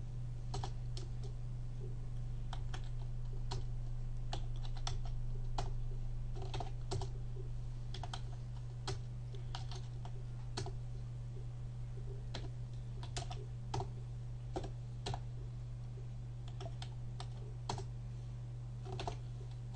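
Computer keyboard typing: irregular key clicks, unevenly spaced with short pauses, over a steady low electrical hum.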